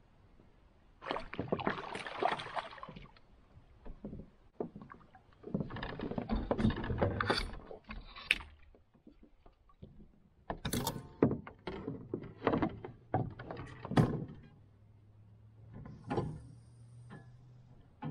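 Knocks and thumps against a canoe hull, with two longer noisy bursts early on and a cluster of sharp knocks about ten to fourteen seconds in.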